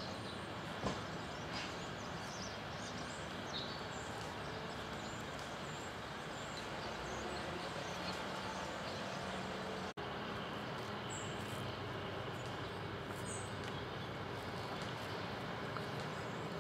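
Steady, faint outdoor background noise, a low rumble and hiss, with a few faint high bird chirps scattered through it; the sound briefly cuts out about ten seconds in.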